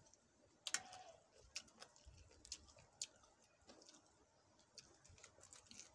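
Faint, scattered clicks and smacks of people eating with their fingers: chewing, lip smacks and fingers picking at papaya salad. The sharpest click comes a little under a second in.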